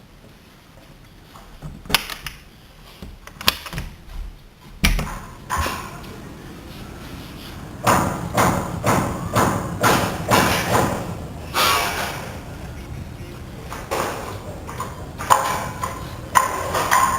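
Construction work: irregular, sharp metal-on-metal strikes with a short ringing tail, coming in a quick run of about two a second around the middle and again near the end, the sound of hammering on metal.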